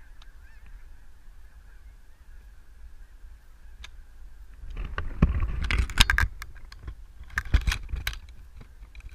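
Flock of geese honking: a faint, steady chatter of distant calls, then two loud bunches of sharp honks, about five seconds in and again near the end, as the geese come in close to land.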